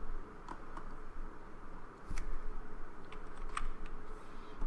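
A handful of scattered, separate clicks from a computer mouse and keyboard, over a steady faint background hiss.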